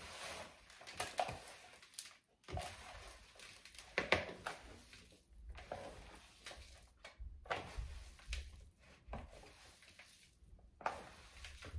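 Ground deer meat being mixed with seasonings in a bowl: irregular squishing and light knocks of handling, with a few low thuds.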